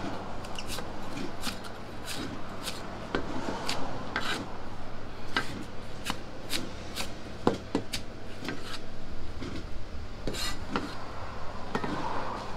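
Kitchen knife slicing through cabbage leaves held flat on a thick round chopping block: rasping cuts with irregular light clicks and knocks of the blade against the block.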